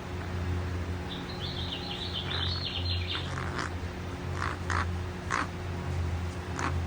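American crow purring: a soft, low, steady rumble, with a quick run of high chirps about a second in and several short, separate clicking notes after it.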